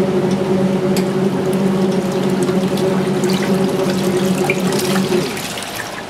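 Kuppet twin-tub portable washer agitating a load in its wash tub: the wash motor hums steadily under water sloshing and splashing. About five seconds in the motor stops for the pause in the back-and-forth wash cycle, leaving only the water swishing.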